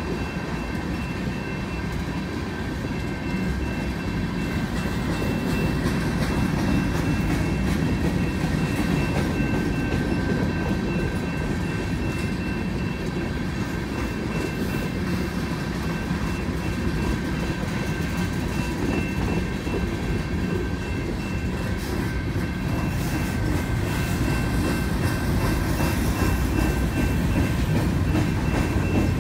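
CN freight train of tank cars and covered hoppers rolling past, its wheels making a steady rumble on the rails, with faint steady high tones above it.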